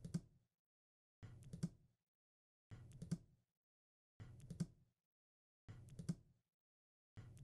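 Faint short burst of clicks with a little low rumble, repeating identically about every second and a half, with dead silence between the bursts.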